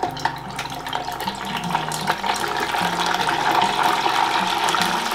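Chicken karaage pieces sizzling in hot oil in a small electric deep fryer, a hiss full of fine crackles that grows louder as the pieces go back in for their second, finishing fry.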